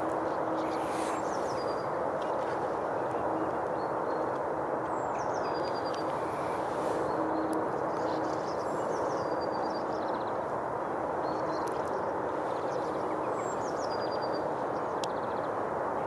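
Steady outdoor background noise, an even rushing haze, with a small bird's short high call that steps downward in pitch, heard about three times, and a few faint clicks.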